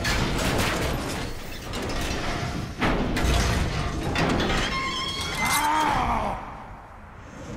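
Film fight sound effects: a dense run of crashes, metal clanks and heavy impacts, with a short rising-then-falling pitched sound about five and a half seconds in.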